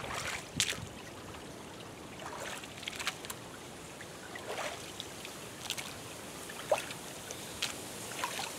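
Rubber boots wading through a shallow creek, each slow step sloshing and splashing in the water.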